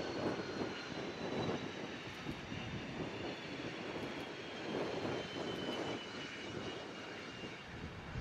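Jet aircraft engines running, a steady rush with a faint whine that slowly falls in pitch.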